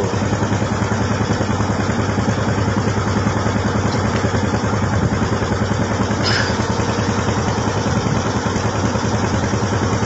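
A pompong wooden motorboat's engine running steadily under way, with an even chugging beat. A brief high-pitched squeak sounds about six seconds in.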